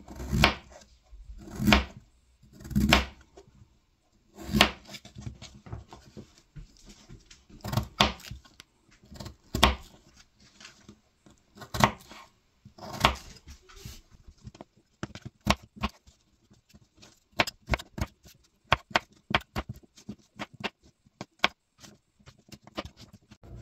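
Farberware paring knife cutting through peeled potatoes and knocking on a plastic cutting board: separate cuts about every second at first, then from about halfway light, quicker taps several a second.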